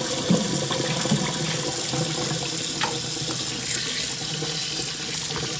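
Kitchen tap running a steady stream of water into a plastic tub of cut raw pork in a stainless steel sink, splashing over the meat pieces as hands begin rinsing them.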